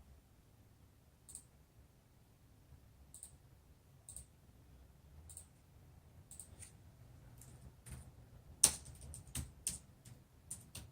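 Computer mouse and keyboard clicks: single clicks a second or two apart, then a quicker run of clicks from about eight seconds in, the loudest near the start of that run.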